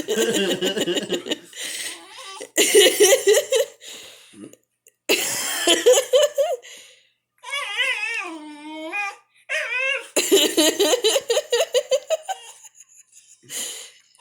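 People laughing hard in several bursts. About halfway through, a dog whines in one long, wavering, pitch-bending call, begging for food.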